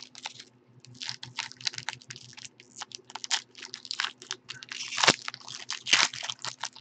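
Silver foil wrapper of a Topps Tier One baseball card pack crinkling and tearing as it is pulled open by hand: a quick, irregular run of crackles, with two louder rips about five and six seconds in.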